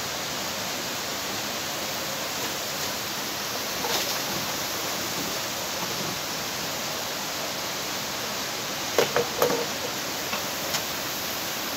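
Steady rushing of a river's flowing water, with a few short knocks near the end.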